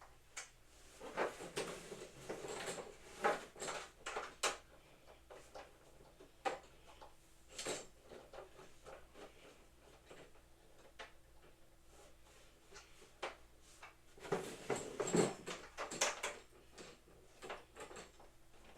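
Irregular knocks, clicks and clatter of boxing-set parts being handled and fitted together during assembly, with a busier run of knocks about fourteen to sixteen seconds in.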